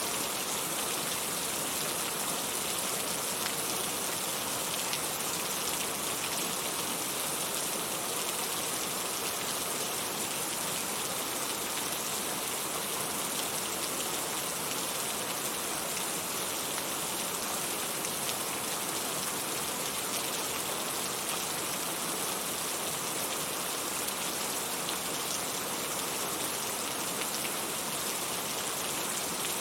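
Heavy rain falling steadily, a dense hiss of drops with fine patters on a surface.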